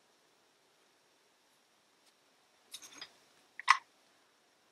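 Triumph Herald gearbox top cover being handled by gloved hands: after a couple of quiet seconds, a few light clicks, then one sharper knock a little later.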